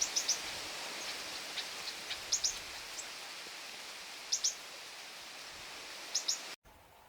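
A small bird giving short, high chirps, mostly in quick pairs or triplets about every two seconds, over a steady hiss.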